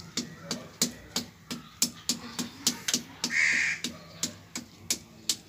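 Sharp taps repeating at about three a second, and one loud, harsh call lasting about half a second a little past the middle.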